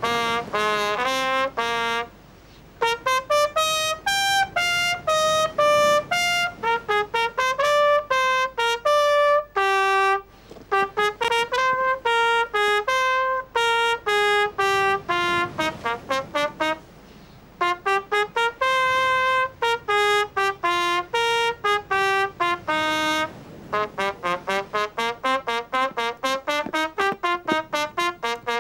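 Solo trumpet playing a melody in phrases: quick runs of short notes at the opening and again near the end, longer held notes in between, with brief pauses between phrases.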